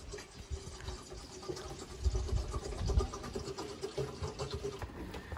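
Rain falling on the tree leaves overhead: many small irregular drop ticks over a soft hiss, with a few low thuds.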